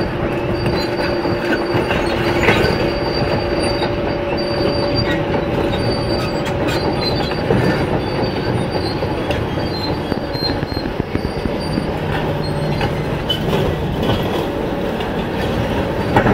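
Kobelco SK500LC tracked excavators working, a steady heavy engine drone with the squeal and clank of steel tracks. Knocks come and go throughout.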